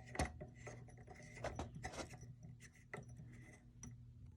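Small light bulbs and their packaging handled by hand: scattered light clicks, taps and rubbing over a faint low steady hum.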